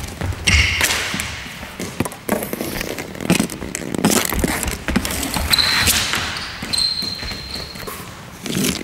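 Floorball stick hitting a plastic floorball, with the ball knocking on the hall floor: a run of sharp knocks and clacks, irregularly spaced about a second apart.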